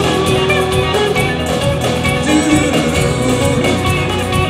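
Live band music with acoustic guitar to the fore.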